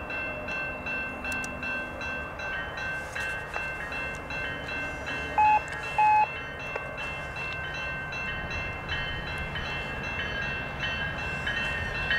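Level-crossing warning bell ringing steadily at about two strokes a second as a GO commuter train approaches. About five seconds in, two short blasts of a train horn stand out, and the low rumble of the oncoming train grows toward the end.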